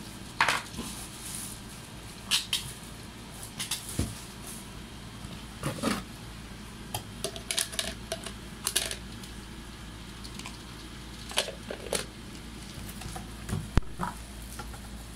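Irregular clicks, knocks and rustles as the hard plastic parts of an electric egg boiler (egg tray, clear dome lid) are lifted out of a cardboard box and fitted together.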